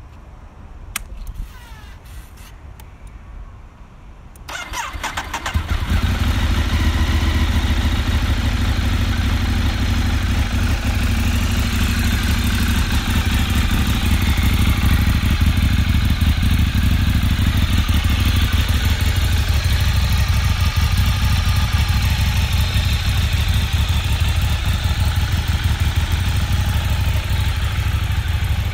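A few clicks, then about four and a half seconds in the Ducati 848 Evo's L-twin engine turns over on the starter, catches and settles into a steady idle.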